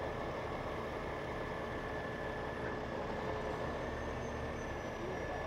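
Heavy rotator tow truck running steadily, with a constant high whine over the engine noise.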